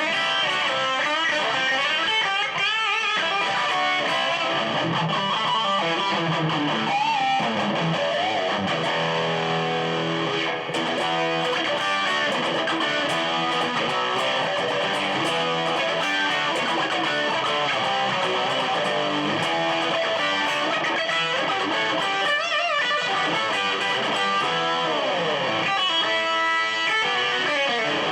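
1985 Matsumoku-made Westone GT electric guitar played with distortion, a continuous run of chords and notes with several pitch slides, one falling slide near the end.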